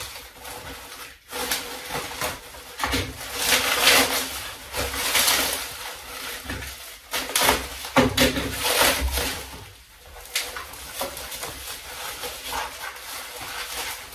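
Clear plastic packaging crinkling and rustling in irregular bursts as a wrapped part is cut open and unwrapped by hand.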